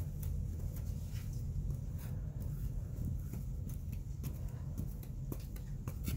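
Metal putty knife scraping and spreading putty along a wooden door frame: scattered light scrapes and clicks over a steady low rumble.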